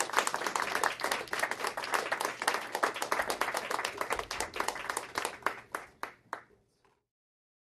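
A small audience applauding, the clapping thinning to a few last separate claps and dying away about six and a half seconds in.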